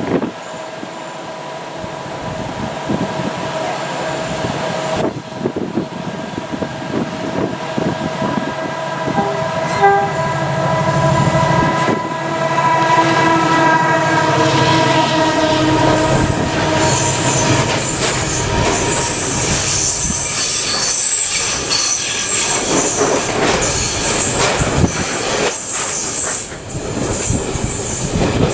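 Colas Rail Freight Class 70 diesel locomotive passing close, its engine note building as it approaches and goes by. It is followed by the engineering wagons clattering over the rail joints, with high wheel squeal.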